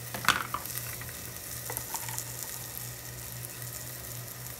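Diced onion and garlic frying in clarified butter in an aluminium pot, a steady sizzle with fine crackles over a low hum. One sharp knock about a third of a second in.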